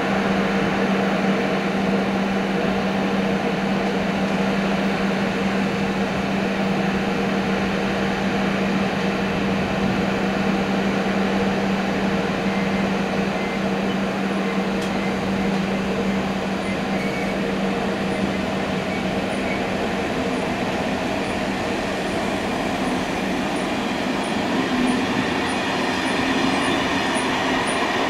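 Croatian Railways passenger train standing at the platform with a steady hum, then pulling away. In the last third, a light ticking from the moving train speeds up as it gathers pace.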